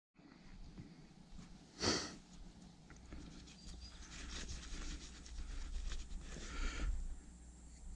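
A rider catching his breath after a hot trail ride, breathing hard and sniffing. There is a sharp loud breath about two seconds in and another swell of breathing near the end, over a faint low rumble.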